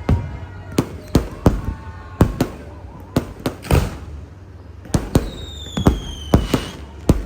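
New Year fireworks going off: a dozen or so sharp bangs at uneven intervals, with a whistle falling in pitch about five seconds in.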